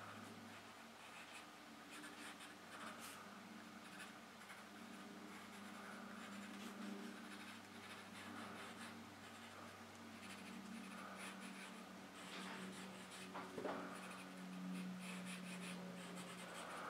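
A pencil point scratching and rubbing faintly on paper as drawn shapes are shaded, in short irregular strokes over a low steady hum.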